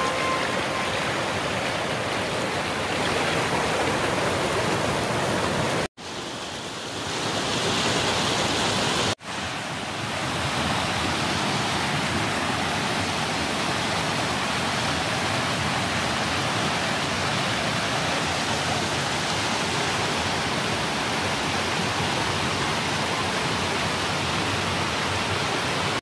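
Mountain stream rushing over rocks and down a small cascade: a steady wash of water noise. It drops out briefly twice, about six and nine seconds in.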